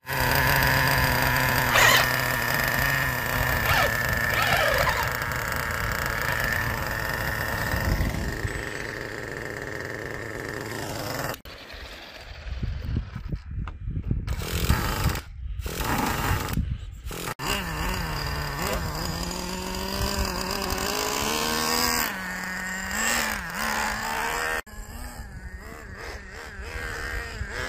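Traxxas Nitro Slayer's small nitro engine running with a buzzing, chainsaw-like tone: steady idle at first, then uneven bursts of throttle about halfway through, and the pitch wandering up and down as the truck moves near the end.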